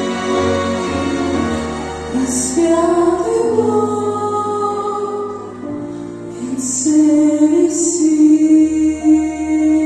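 Female voices singing a slow Christian hymn over an instrumental accompaniment, holding long notes.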